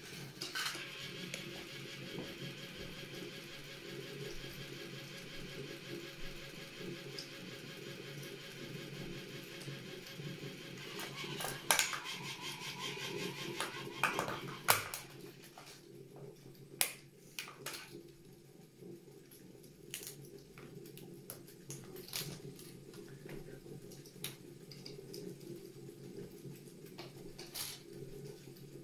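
Small battery-powered toy train running on its plastic track with a steady motor whir. About eleven seconds in, sharp cracks and snaps start as stiletto heels stamp on the plastic locomotive and cars, the two loudest near the middle. After that the higher whine drops away and scattered crunches and clicks follow over a low hum.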